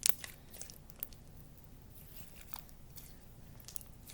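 Glue slime being worked by hand, giving faint scattered crackles and clicks, with a short cluster of sharper clicks right at the start.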